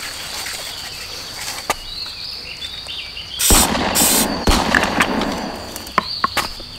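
Steady high-pitched insect buzzing. About halfway through, two loud bursts of noise and a stretch of rustling handling come over it. Near the end there are three sharp knocks as a drink can is set on the stone ledge.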